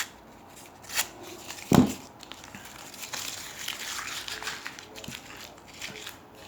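Crinkling, rustling handling sounds with a few sharp clicks and one loud dull thump a little under two seconds in.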